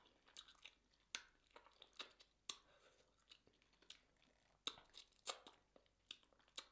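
Faint, close-up mouth sounds of a person chewing and sucking on saucy rotisserie chicken: irregular wet clicks and smacks, a few louder ones about five seconds in.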